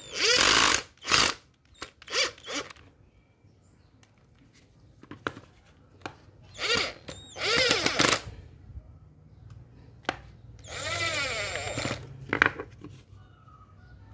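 Power screwdriver driving screws into an angle grinder's gear housing in a series of short bursts, its motor whine rising and falling in pitch with each burst.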